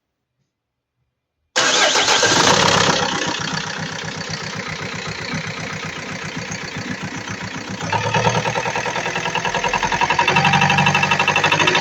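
Renault 2.2 dCi G9T four-cylinder diesel engine starting about a second and a half in, then running with an even, rhythmic knock, louder from about eight seconds in. The knock comes from a broken rocker-arm shaft in the valve gear.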